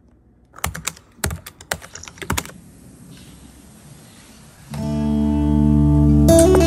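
Typing sound effect: a quick, uneven run of about ten key clicks. Then soft guitar background music comes in about five seconds in.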